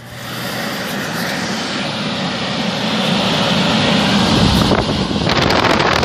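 A 110-volt gas-furnace squirrel-cage blower, wired on high speed, spinning up after being plugged in. Its whoosh of air builds over the first two or three seconds and then runs steady. About five seconds in, a burst of rapid crackling comes in over it.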